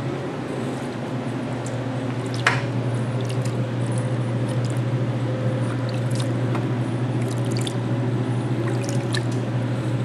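Water sloshing and dripping as a plastic mesh tray of ball python eggs is lowered into a tub of dilute bleach solution and the eggs are submerged. There is a sharp knock about two and a half seconds in, over a steady low hum.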